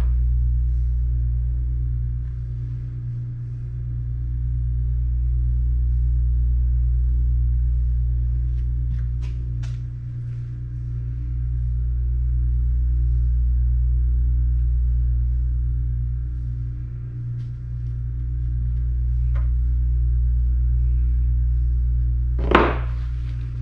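Steady low hum of running machinery, swelling and fading slowly about every seven seconds, with a few faint light clicks of small metal parts being handled.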